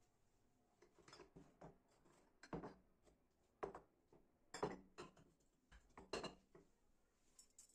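A series of light, irregular knocks and clinks of household objects being handled and set down, about eight in all, the loudest near the middle.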